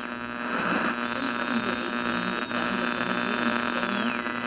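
A steady droning hum that swells in over the first second. A faint high whistle above it drops in pitch near the end.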